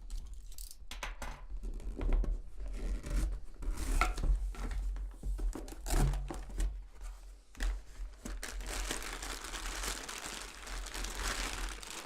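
A small parcel being torn open by hand: packaging tearing and crinkling, with scattered short rips and taps, then a few seconds of continuous tearing near the end.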